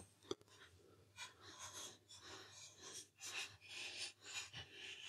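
Very faint hex driver unscrewing the securing bolts from an air rifle's metal block: a single click near the start, then soft scraping strokes about twice a second.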